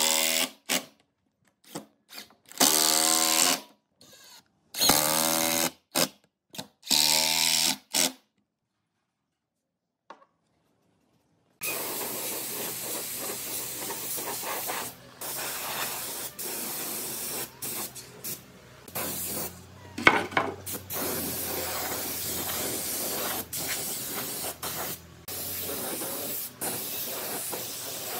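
A cordless drill driving screws into wood in a series of short whirring bursts, its pitch rising and falling with each. After a few seconds of silence, a compressed-air spray gun hisses in long spurts while spraying finish.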